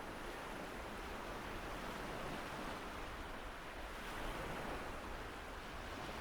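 Rain and sea sound effect: a steady rushing hiss of rain and surf, with no alarm tone.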